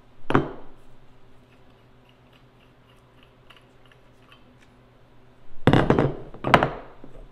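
Threaded black steel pipe fittings of a homemade kettlebell handle clanking. There is a sharp metal knock at the start, then faint clicks and scraping as a pipe handle is unscrewed, then a loud clatter of pipe pieces set down on the table near the end.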